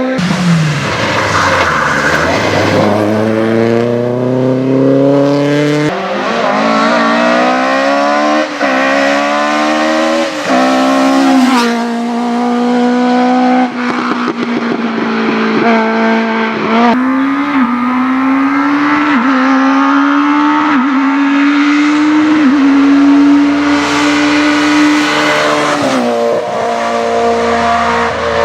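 Rally car engine being driven hard: after a falling note at the start, the pitch climbs and drops sharply at each upshift, four times in quick succession, then holds fairly steady with small rises and dips before falling again near the end.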